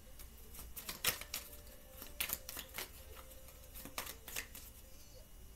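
Tarot cards being handled on a table: soft, scattered flicks and taps of cards being drawn and laid down, about a dozen in irregular clusters.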